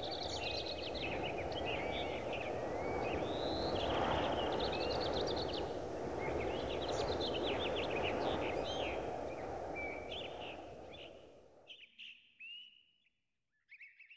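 Birds chirping and trilling over a low, steady background noise. About eleven seconds in the low noise cuts off, leaving only a few scattered chirps.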